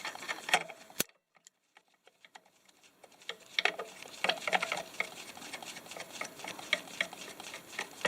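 Light metallic clicks and taps of small oil-burner parts being handled and fitted by hand: a sharp click about a second in, a short near-silent gap, then a run of irregular ticks and clinks.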